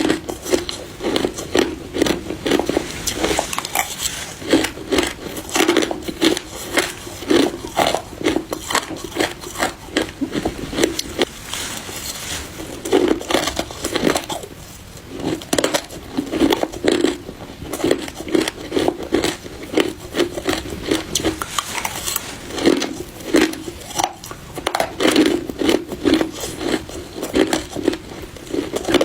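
Crushed ice being bitten and chewed close to the microphone: a fast run of sharp, crackling crunches with only a brief pause about halfway through.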